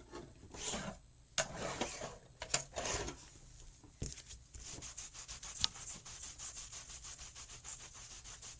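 Rubbing strokes over sanded cardstock, wiping off the sanding dust: a few slower strokes at first, then a quick, even back-and-forth run of several strokes a second from about halfway.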